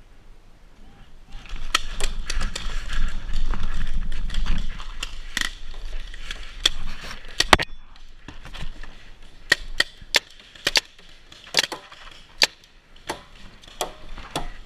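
Paintball markers firing sharp pops, single shots and quick pairs at irregular intervals, some close by and some farther off. A stretch of rustling, scuffling noise runs under the first few seconds.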